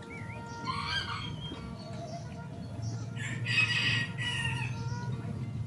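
A rooster crowing twice: a short crow about a second in, then a longer, louder crow from about three seconds in.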